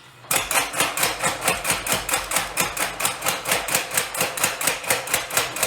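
50 lb Little Giant power hammer running, its ram hammering down in a fast, even rhythm of about five blows a second. It starts suddenly at the very beginning.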